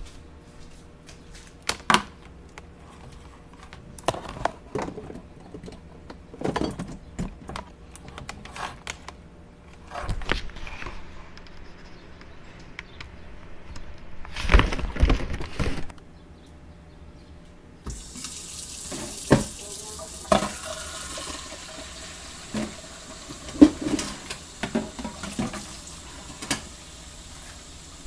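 Kitchen knocks and clicks of things being handled, with a louder cluster of thumps about halfway through; then, about two-thirds of the way in, a kitchen faucet starts running steadily into the sink, with more knocks over the running water.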